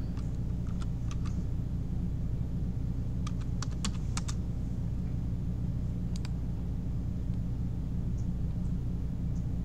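Typing on a computer keyboard: a few short runs of sharp key clicks, over a steady low hum.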